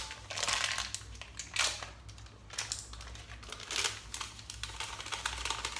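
A plastic seasoning-mix sachet crinkling in the hands as it is squeezed and shaken out into a bowl of marinade, in irregular bursts.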